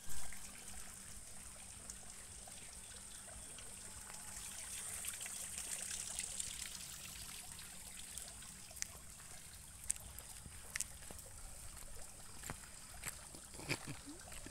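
Garden fountain water trickling steadily, with a thin high hiss over it. A brief bump right at the start and a few light clicks near the end.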